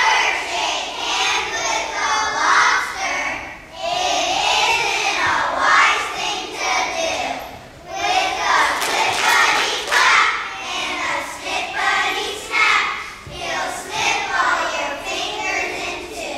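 Group of young children singing together, in phrases separated by short breaths.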